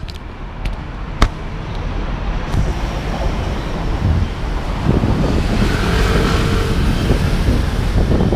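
City street ambience: traffic noise mixed with wind buffeting the microphone, growing louder over the second half, with a sharp click about a second in.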